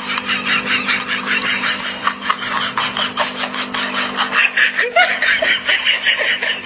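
Continuous rapid laughter, a quick run of snickering pulses several times a second.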